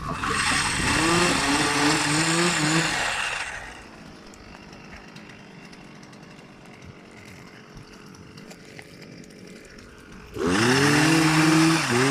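Small two-stroke engine of a handheld Stihl branch shaker running at high revs while it shakes almond branches, then falling away to a low level for about six seconds. It revs back up sharply about ten and a half seconds in, with brief dips in pitch near the end as it takes load.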